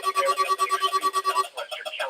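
NOAA Weather Radio warning alarm tone: a steady tone near 1 kHz with a weaker lower tone beneath it, both cutting off about one and a half seconds in as the broadcast test signal ends.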